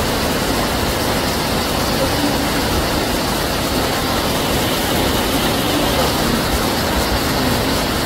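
Steady rush of a mountain stream's flowing water, an even loud hiss.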